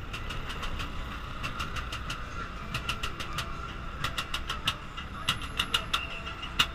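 Busy city street ambience: steady traffic rumble under a continuous high-pitched whine, with a run of irregular sharp clicks, the loudest near the end.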